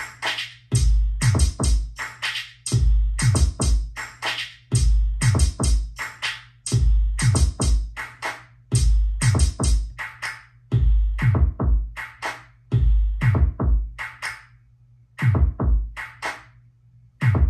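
Electronic drum-machine beat from an Ableton Live drum kit, played on an Ableton Push 2, looping a pattern of quick hits with a deep kick about every two seconds. The beat drops out briefly twice near the end.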